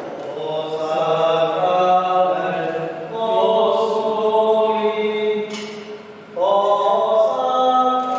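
Slow hymn sung in long held notes, in phrases that break off about three and six seconds in.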